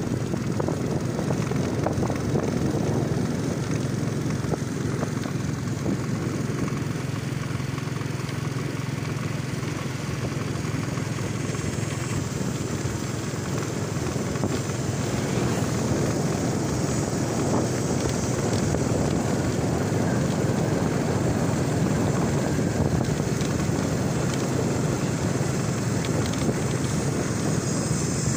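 Small motorcycle running steadily at cruising speed, with road noise and wind buffeting the microphone.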